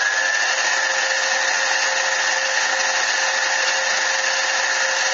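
A modified mini lathe running steadily with its chuck spinning, a steady machine whine with a high tone that climbs slightly at first and then holds.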